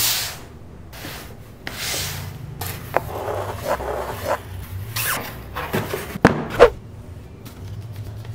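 Cardboard and paper handled by hand while a shipping box is unpacked: a run of rubbing, scraping and rustling, with a few light clicks and two sharp knocks of cardboard about two-thirds of the way through.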